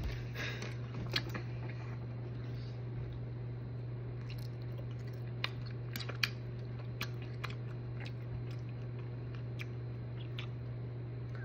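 Steady low hum in a quiet room, with scattered faint clicks and taps from small makeup containers and applicators being handled: one about a second in, then several between about five and ten seconds.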